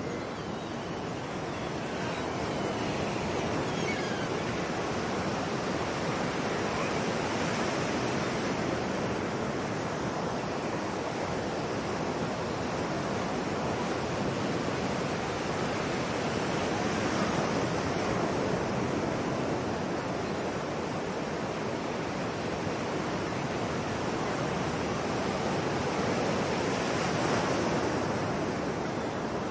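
Ocean surf: a steady wash of waves breaking on the shore, swelling a little louder a few times.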